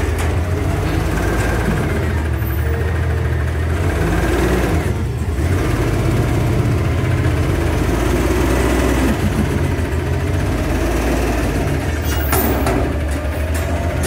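Diesel engine of a 2016 Autocar garbage truck with an Amrep front-loader body running steadily, with a brief clank about twelve seconds in.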